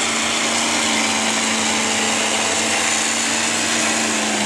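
Stock gas-engine pickup truck's engine running hard at high, steady revs under load while pulling a weight-transfer sled, with a constant engine note that begins to drop just at the end. The announcer suspects the truck has a weak clutch.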